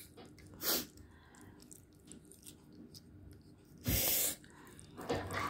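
A person eating spicy cheese hot-chicken ramen makes short, sharp, noisy in-breaths, the loudest about four seconds in. Faint small clicks of chopsticks in the bowl come between them.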